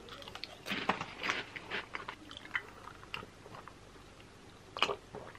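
Close-up eating sounds: a person biting and chewing food, with many small crisp crunches through the first few seconds, then fewer, and one brief louder noise near the end.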